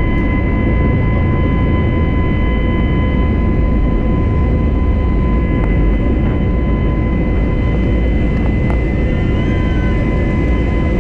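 Steady jet airliner cabin noise: a deep rumble of engines and airflow with a steady high whine over it.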